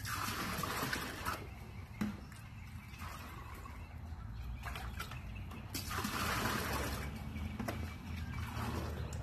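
Water being scooped and poured between plastic buckets with a cut-open laundry-detergent jug, splashing and sloshing at the start and again about six seconds in, over a steady low rumble.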